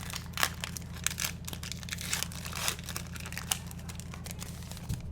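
Foil wrapper of an Allen & Ginter baseball card pack crinkling and tearing as it is opened, a string of sharp crackles that thins out near the end, over a steady low hum.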